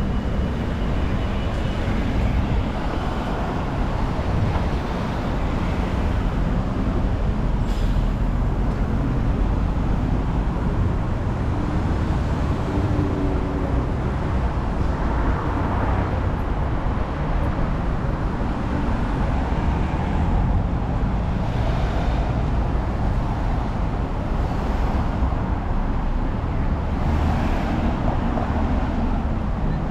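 City street traffic: a steady rumble of passing cars and buses, swelling louder a few times as vehicles go by.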